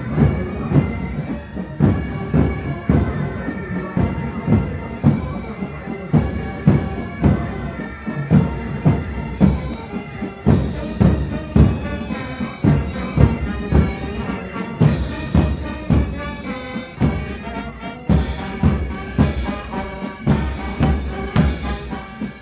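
Military band playing a march, pipes over a steady drum beat of about two strokes a second.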